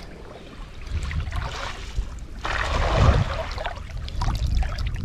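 Water sloshing and splashing in shallow, muddy water, with one louder wash of sound about two and a half seconds in.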